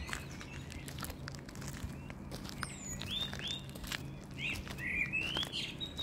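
Small birds chirping: a string of short chirps, most of them in the second half, over scattered light ticks and rustles and a faint low hum.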